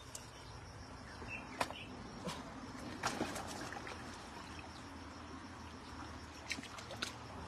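Shallow stream water trickling over rocks, with a few short splashes and knocks as hands grope among the stones for freshwater prawns.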